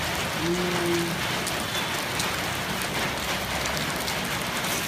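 Nom kruk batter sizzling in a cast-iron multi-cup mould pan over a charcoal fire, a steady hiss, with a short low hum about half a second in.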